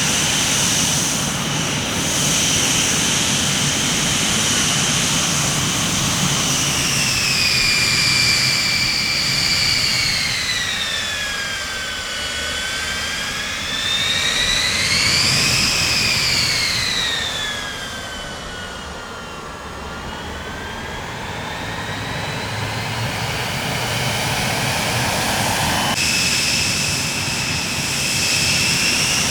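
Jet aircraft engines with a loud rushing roar and a high whine. The whine slides down in pitch, rises to a peak about halfway through, drops again, and climbs back near the end.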